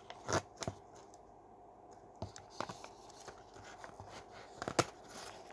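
Handling noise from an airtight pouch being worked open: the material crinkles and there are a few short, sharp clicks and snaps, including a close pair near the end.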